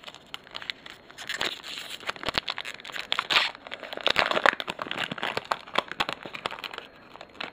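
Foil wrapper of a trading-card pack being torn open and crinkled by hand: a run of irregular crackles and rustles that thins out near the end.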